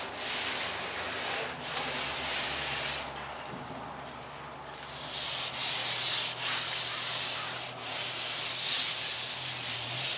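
A Filon fiberglass sheet being slid and rubbed by hand as it is laid onto the glued roof of a teardrop trailer and smoothed down: a run of rasping, scraping strokes, quieter for a couple of seconds in the middle.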